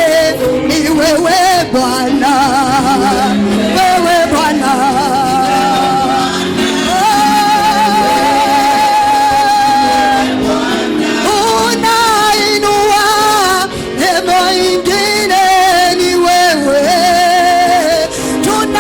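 Congregation singing a Swahili worship chorus, with vibrato-heavy sung lines and one long held note about seven seconds in.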